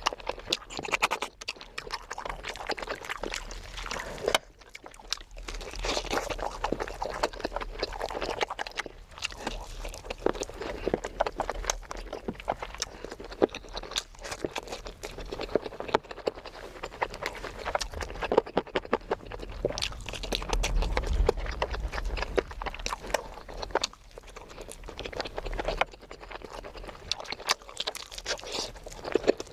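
Close-miked eating sounds: wet chewing and lip-smacking with many irregular sharp clicks.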